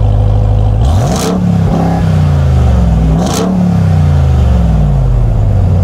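Dodge Ram 1500 TRX's 6.2-litre supercharged V8 idling through its exhaust, blipped twice: the pitch climbs and falls back to idle each time, the second rev about two seconds after the first.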